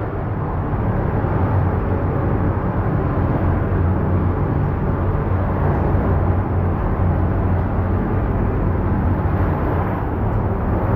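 Steady low rush of water flowing through a narrow cave passage, a continuous rumbling noise with no distinct splashes.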